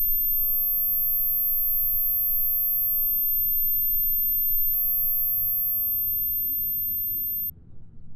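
A steady, piercing very high-pitched sine tone over a faint low rumble, cutting off suddenly about seven and a half seconds in: an ear-ringing sound effect.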